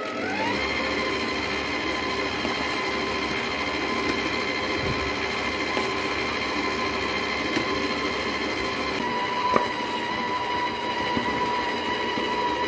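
Stand mixer's electric motor running, its whine rising in pitch over the first half-second as it speeds up, then holding a steady speed while it mixes the dough.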